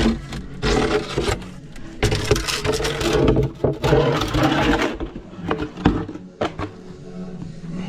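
Wooden arch form (centering) being knocked loose and scraped out from under a freshly laid brick arch of a Russian stove: irregular wooden knocks and scraping against brick, busiest in the first half.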